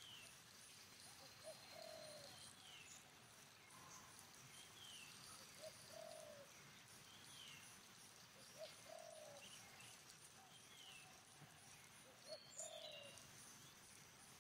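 Faint outdoor birdsong: a dove coos a short low phrase four times, about every three and a half seconds, while another bird repeats a high falling chirp, over a faint, even high-pitched insect pulsing.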